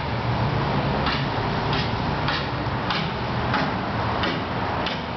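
Regular ticking, about one and a half clicks a second, over a steady low rumble.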